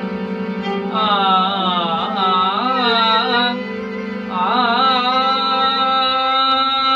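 Violin playing ornamented phrases of raga Yaman with slides and turns over a steady harmonium drone. The melody comes in about a second in, breaks off briefly, then settles into a long held note.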